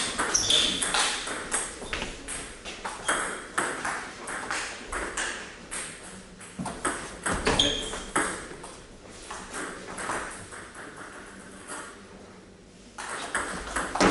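Table tennis ball clicking back and forth off rackets and the table in fast rallies. The clicks thin out for a few seconds about two-thirds of the way through, then pick up sharply again near the end.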